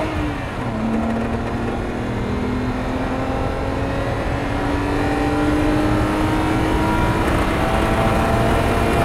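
BMW N52 straight-six engine at full throttle heard from inside the cabin, revs dipping about half a second in and then climbing steadily toward the redline. A grinding noise under acceleration comes with it, typical of a failing DISA intake-manifold valve.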